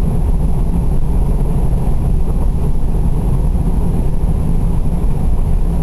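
Steady low road and engine rumble heard from inside a car's cabin while driving at highway speed.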